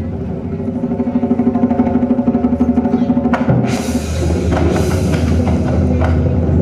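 Large drums played in a fast roll that builds in loudness. About halfway through come heavy strikes, followed by a bright, ringing wash above the drumming.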